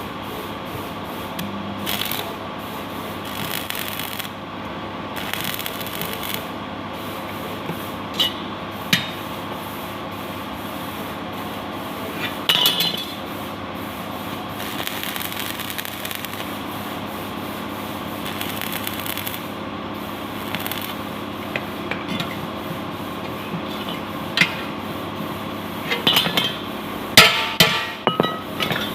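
Metalworking at a welding job: a steady machine hum, with on-and-off stretches of hissing and scattered sharp hammer strikes on metal, the loudest cluster of strikes near the end.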